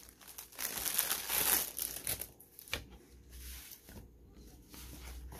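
Plastic wrapping crinkling as it is handled and pulled open by hand, dense for about two seconds, then dying down to a few light rustles and clicks.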